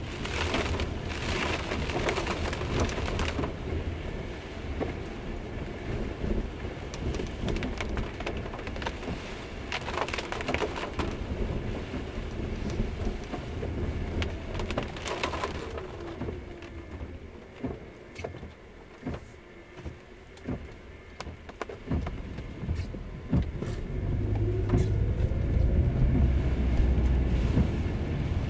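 Car driving on a rain-soaked street, heard from inside the cabin: a steady low road and engine rumble with wet-tyre hiss and rain on the windshield. There are brief louder bursts of hiss a few times and scattered light ticks, and the low rumble grows louder near the end.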